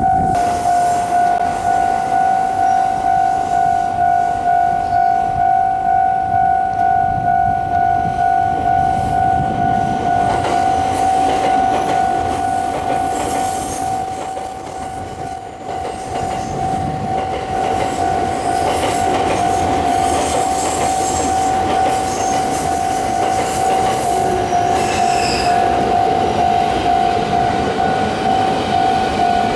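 Japanese railway level-crossing warning bell ringing in a steady, fast-repeating electronic ding at one pitch. Under it, train wheels rumble on the rails as trains pass over the crossing, loudest over the second half.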